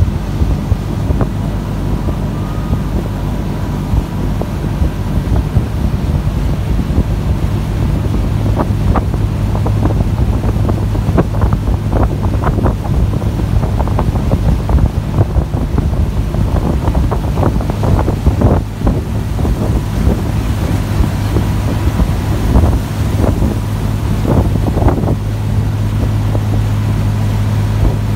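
Abra water taxi's engine running steadily underway with a low drone, with wind buffeting the microphone and irregular splashing of water against the hull through the middle of the ride.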